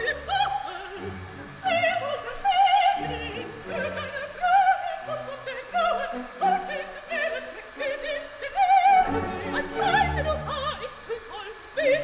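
Operatic singing with a wide vibrato over orchestral accompaniment: background music.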